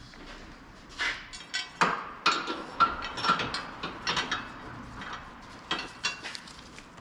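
Irregular metallic clicks and clanks of hand tools at work on the car, starting about a second in and stopping shortly before the end.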